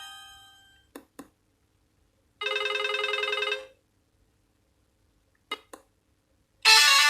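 Nokia X1-01 ringtones being played one after another: a musical tone fades out, two short clicks follow, then about a second of a warbling telephone-bell ring. Two more clicks come, and a new melodic ringtone starts loudly near the end.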